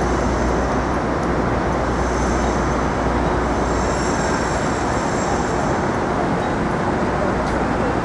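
Steady city street traffic noise, with a low rumble that fades out about three and a half seconds in.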